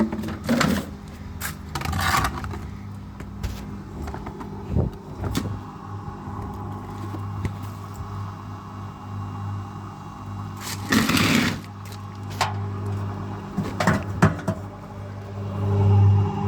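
Fagor washing machine's motor humming steadily as it tries to spin the drum up again, with irregular knocks and a louder scraping burst about eleven seconds in.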